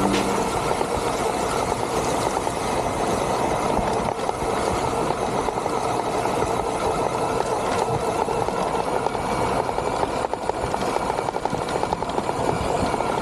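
Rochobby 1/6-scale Willys jeep RC model driving, its motor and gear train running steadily with the tyres rolling over the ground.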